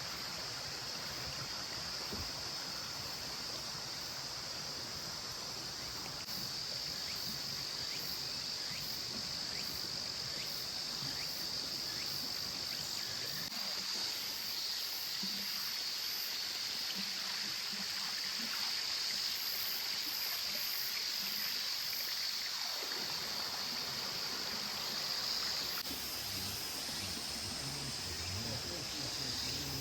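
Mountain stream flowing steadily, with insects singing in a constant high-pitched band over it.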